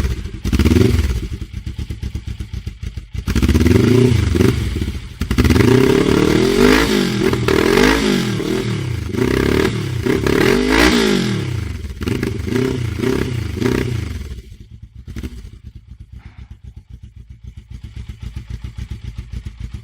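Suzuki GS 500 E's carbureted parallel-twin engine, fitted with a homologated aftermarket end can, revved up and down several times, then dropping back to a steady idle about fifteen seconds in.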